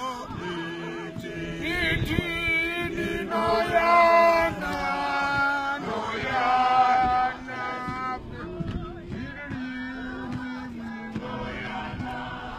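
A group of men's and women's voices singing together unaccompanied, with long held notes.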